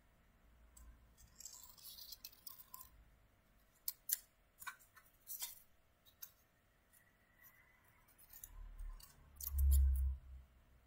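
Scissors cutting thin paper: a string of short, sharp snips, then a dull low thump about ten seconds in.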